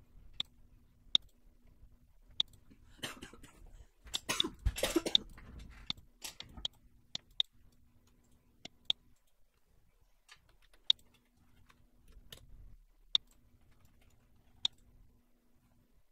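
Computer mouse buttons clicking: single sharp clicks every second or two. About three seconds in there is a denser rattle of rapid clicks and rustling lasting about two seconds.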